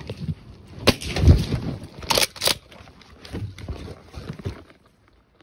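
Handling noise from a phone carried in a mesh MOLLE pouch on a vest: rubbing and dull thumps as the wearer moves, with two sharp cracks a little after two seconds in.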